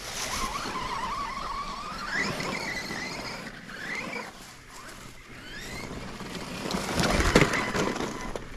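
Brushless electric motor and gears of a 1/10 RC monster truck on a 2S battery, whining up and down in pitch as the throttle is worked on a dirt trail climb. A louder burst of crunching and scuffing comes about seven seconds in.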